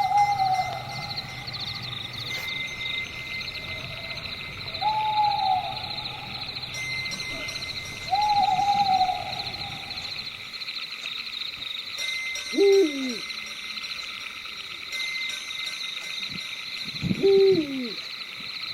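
Night forest ambience: crickets chirring steadily while an owl gives three drawn-out hoots a few seconds apart, then two louder calls that drop sharply in pitch. A low drone underneath stops about halfway through.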